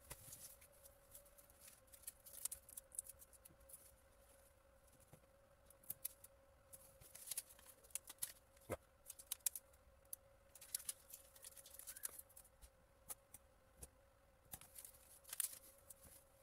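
Faint crinkling and clicking of paper and plastic handled close by: the backing paper being peeled off the double-sided adhesive of a foam corner protector. A faint steady hum runs underneath.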